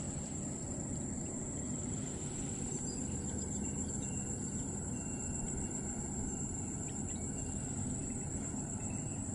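A steady, continuous, high-pitched insect call, over a low steady rumble.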